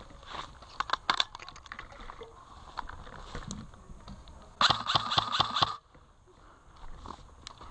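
Footsteps crunching through dry grass and leaves, with gear brushing against bamboo. About five seconds in, an airsoft rifle fires a rapid burst of about a second, with quick evenly spaced clicks that stop abruptly.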